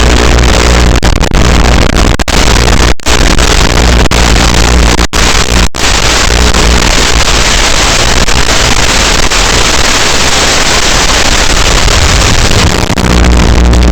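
FPV quadcopter's motors and propellers running at a loud, steady buzz, cutting out for an instant three times, about 3, 5 and 6 seconds in.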